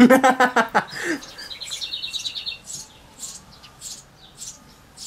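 Small songbirds singing: a rapid high trill lasting about a second, then short high chirps repeating every half second or so.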